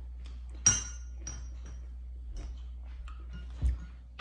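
A sharp clink with a brief high ring, then a fainter one, as eating utensils knock against a ceramic dish; a dull knock near the end, over a low steady hum.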